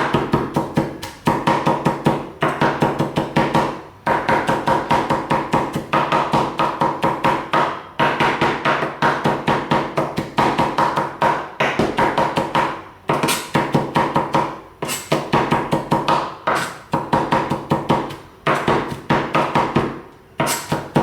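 A knife chopping garlic on a cutting board: rapid, repeated strokes in runs of a few seconds, broken by short pauses, as the smashed cloves are minced finely.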